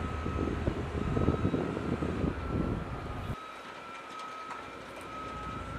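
Outdoor industrial-site ambience: a low, uneven rumble of machinery and wind with a steady high whine over it. The rumble drops out abruptly about three seconds in, leaving a quieter hum with a few faint clicks.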